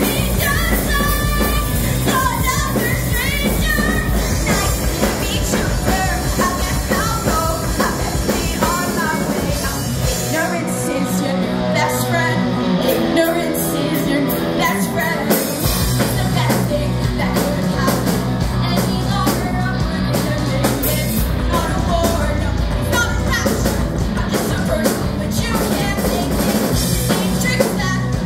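Live rock band playing through a PA: a female lead singer over electric guitars, bass and drum kit. About ten seconds in, the bass and kick drum drop out for about five seconds while the singing and guitar carry on, then the full band comes back in.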